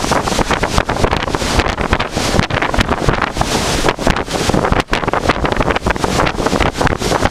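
Storm-force wind buffeting the camera microphone: a loud, ragged, gusting rush that drops briefly about five seconds in, over the wash of rough seas churning along a cruise ship's hull.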